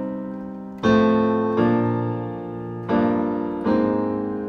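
Digital keyboard on a piano sound playing a slow chord progression in E flat: a C minor chord rings and fades, then four more chords are struck, each left to ring and decay, the last an A flat major chord near the end.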